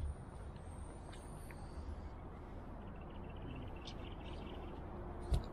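Faint, steady low outdoor rumble, with a short thump at the start and another near the end.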